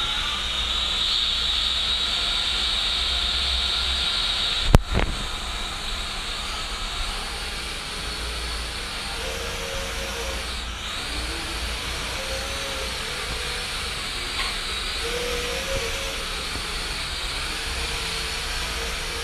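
JJRC H12W toy quadcopter in flight: its motors and propellers make a steady whirring hiss, with a higher whine over the first few seconds. A single sharp knock about five seconds in.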